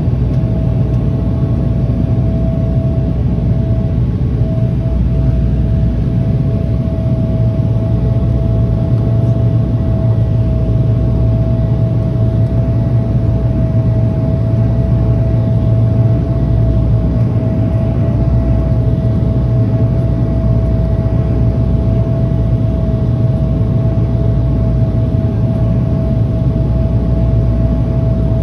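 Dash 8 turboprop airliner heard from inside the passenger cabin during the descent: a steady, unbroken engine and propeller drone with a thin, constant mid-pitched tone over it.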